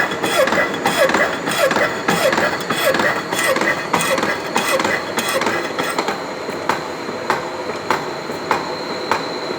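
Slotting machine's ram going up and down in a steady rhythm as its tool cuts metal, giving a regular clacking stroke. About six seconds in the sound thins to evenly spaced clicks, under a steady high whine.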